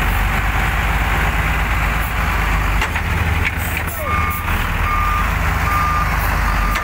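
Heavy truck's diesel engine running close by with a steady low rumble. About four seconds in, a truck's reversing alarm starts beeping, a little more than one beep a second: a truck is backing up.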